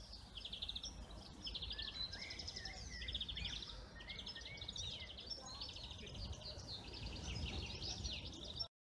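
Several small songbirds singing at once: quick, evenly repeated trills and short chirps rising and falling in pitch, over a low steady outdoor rumble. The sound cuts off abruptly near the end.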